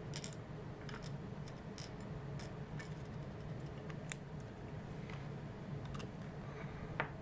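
Small screwdriver driving screws into a portable radio's plastic case: irregular light clicks and ticks, with a sharper click near the end, over a low steady background hum.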